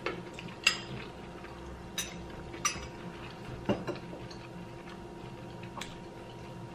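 A handful of sharp, separate clinks of spoons against small glass bowls and a glass dish during eating, about six taps spread irregularly a second or so apart, over a steady low hum.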